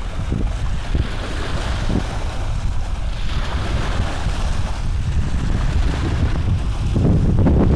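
Rumbling, wind-like noise on the microphone, getting a little louder near the end.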